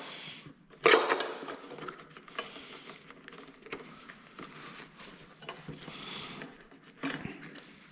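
Light clicks and rustling of hands working the wiring and plastic fairing parts of a motorcycle while a wire is being taken off, with one sharper click about a second in.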